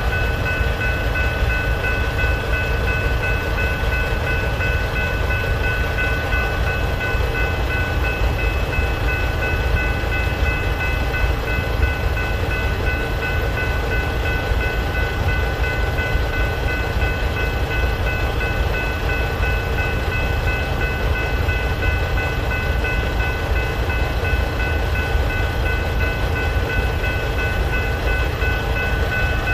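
Freight train's covered hopper cars rolling steadily through a grade crossing with a low rumble, while the crossing's General Signals type-3 electronic bells keep ringing.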